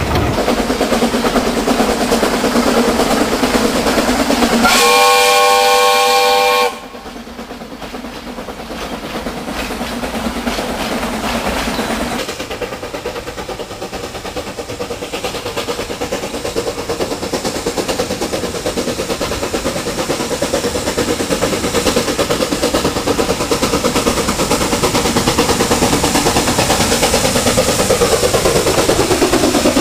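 Coal train riding behind a steam locomotive, wagon wheels rattling on the track, with the locomotive's steam whistle sounding a chord of tones for about two seconds near the start. It then cuts to a steam locomotive with its coal train approaching and passing, its running sound growing louder toward the end.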